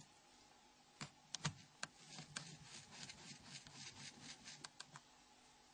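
Faint, scattered sharp clicks over light rubbing: a small screwdriver working two tiny screws out of a Nokia N93 phone's flip housing and the screws being lifted out. The clicks stop about a second before the end.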